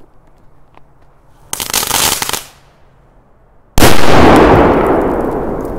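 Titanblitz 3 Crackling firecracker: a dense crackling about a second and a half in, lasting under a second, then a very loud single bang near the end whose echo rumbles and fades away slowly.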